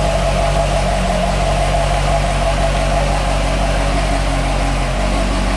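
Twin-turbo Chevrolet Corvette V8 idling steadily.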